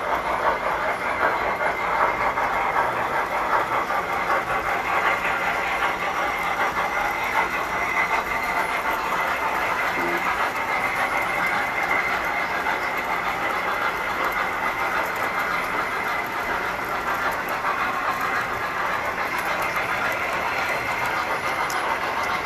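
Tinplate toy trains running on a model layout: a steady, dense clatter of metal wheels on track.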